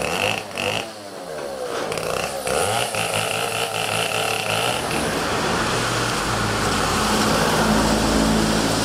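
Petrol chainsaw running at high revs and cutting through the trunk of a storm-felled tree, its pitch rising and dipping as it bites. After about five seconds it gives way to a steadier street noise with a low engine hum.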